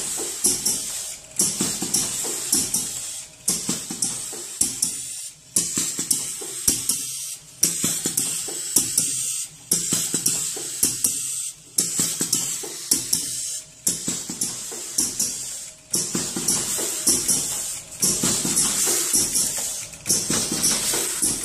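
Four-lane stick-pack sugar packaging machine running: a dense clatter with hiss, in a regular cycle that dips briefly about every two seconds.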